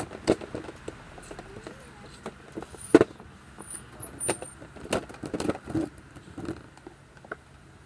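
Clicks and knocks of a hard plastic toy wardrobe being handled, with one sharp knock about three seconds in and a few more around five to six seconds in.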